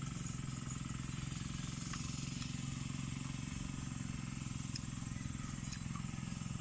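A steady low engine-like drone, even in pitch, with a few faint light ticks over it.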